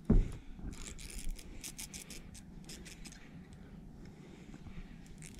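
A single heavy thump, then a quick run of light, scratchy clicks lasting about two seconds.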